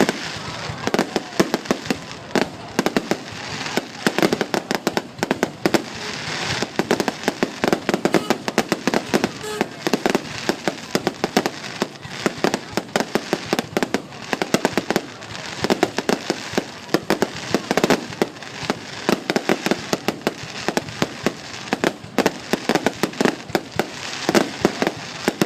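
Fireworks going off in a dense, unbroken stream of sharp cracks and bangs, many per second.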